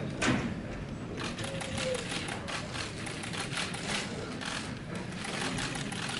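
Camera shutters clicking in rapid, uneven bursts over a low murmur of the room, with a brief louder sound right at the start.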